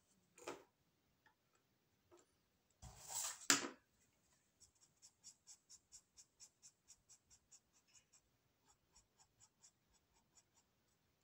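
Felt-tip marker drawing on paper in short, even scratching strokes, about three a second, from about four and a half seconds in. Before that, a louder rustle of handling near three seconds in is the loudest sound.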